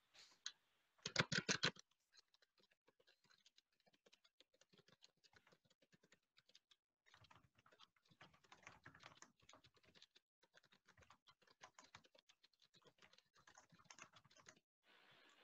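Faint, rapid typing on a computer keyboard, keystrokes clicking in quick runs with short pauses between. A brief, louder clatter of several strokes comes about a second in.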